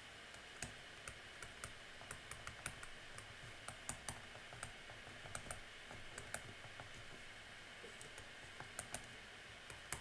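Faint, irregular clicks and taps of a stylus on a tablet screen during handwriting, several a second at times, over a steady faint background hiss.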